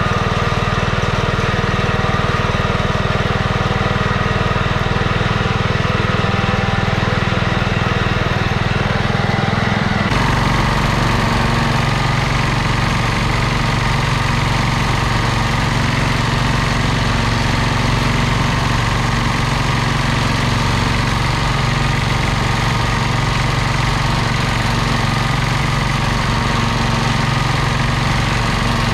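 Simplicity 2010 garden tractor's engine running steadily under load as it pulls a cultivator through the soil. About ten seconds in, the tone shifts abruptly.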